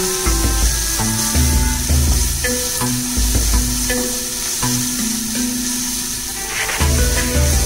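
Chopped onions and curry leaves frying and sizzling in oil in an aluminium kadai, stirred with a wooden spatula. Background music with a stepping bass line plays throughout.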